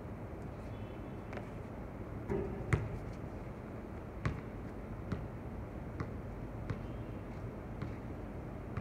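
A basketball bouncing on a hard outdoor court as a player dribbles, sharp bounces about once a second, the loudest a little under three seconds in, over a steady low hum.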